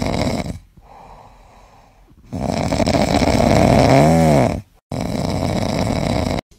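Chow chow puppy snoring as it dozes sitting up: loud rasping snores, three in a row, with a quieter breath between the first two. The middle snore has a short whistle-like tone that rises and falls.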